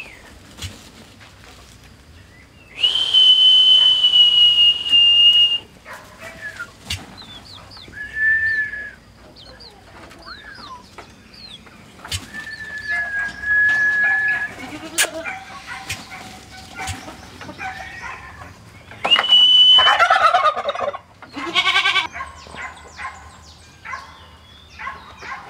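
Tom turkeys gobbling: a fast rattling call breaks out about 20 seconds in, right after a loud, high, steady note, and a second shorter gobble follows it. The same steady note sounds once earlier, a few seconds in.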